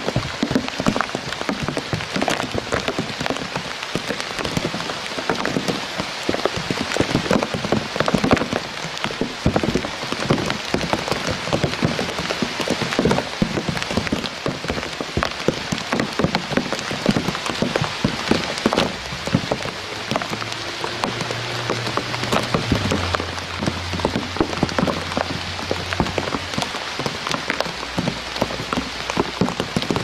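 Steady rain falling on reeds and leaves: a dense patter of many individual drops ticking close by. A faint low hum joins in about two-thirds of the way through.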